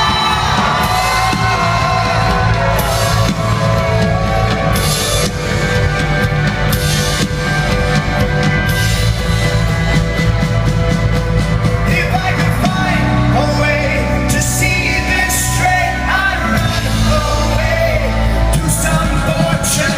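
Rock band playing live with a lead singer. The voice sings at the start and again from about twelve seconds in, where the bass and drums also come in fuller.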